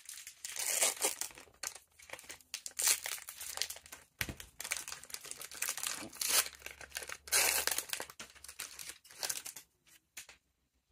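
Foil wrapper of a Disney Lorcana booster pack crinkling and tearing in repeated bursts of rustling as the pack is torn open and handled.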